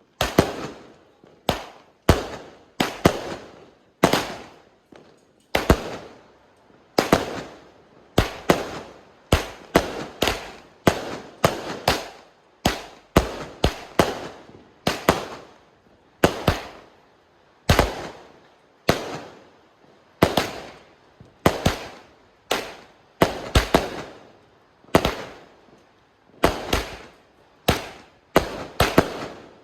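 A 49-shot firework cake firing one shot after another, about one to two bangs a second, sometimes in quick pairs. Each is a sharp report that fades away over about half a second.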